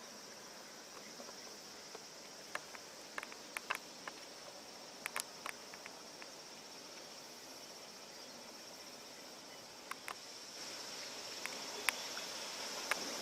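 Faint, steady high-pitched insect buzz, typical of a summer insect chorus, with scattered sharp clicks. A broader hiss swells about ten seconds in.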